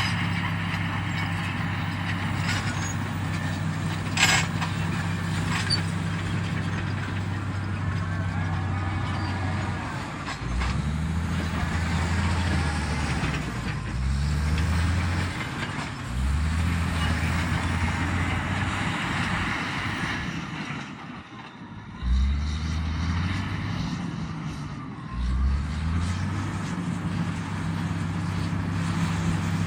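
Komatsu D85EX bulldozer's diesel engine running steadily, then dropping and climbing in speed several times as it works under changing load, with a brief lull a little past the middle before it picks up sharply again.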